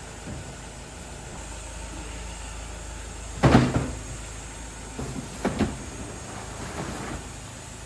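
A loud knock about three and a half seconds in, then a few lighter knocks, over a steady low hum.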